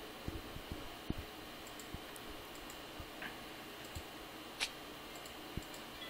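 Computer mouse clicking: scattered single clicks at an irregular pace, quiet, with one short hiss a little past the middle.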